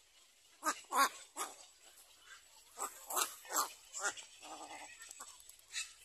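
A series of short, harsh, bark-like animal calls: three about a second in and four more around three to four seconds in, then a brief buzzy call and one last call near the end.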